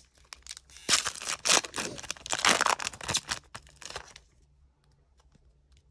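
Foil wrapper of a 1995-96 Topps Stadium Club basketball card pack being torn open and crinkled by hand. The crackling starts about a second in and stops about four seconds in.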